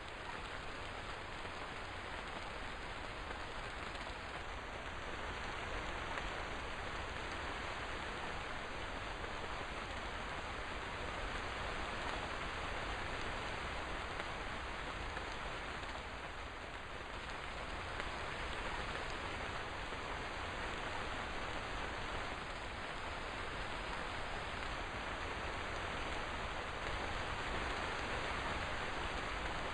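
Steady rain falling, an even hiss of drops without let-up.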